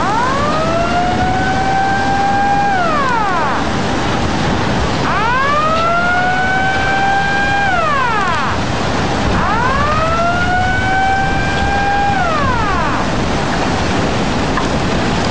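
Outdoor tsunami warning siren wailing three times, each wail rising, holding and falling away, sounded during the major tsunami warning. Under it is a steady rushing noise of tsunami floodwater surging through the port.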